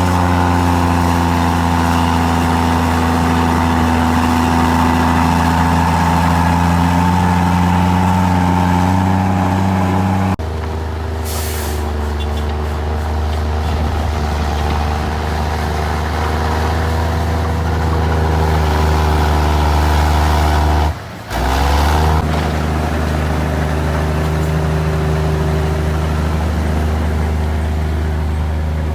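Komatsu D53E bulldozer's diesel engine running steadily at high revs. The sound changes abruptly about ten seconds in and again around 21 s, where it briefly drops out and then the engine note rises.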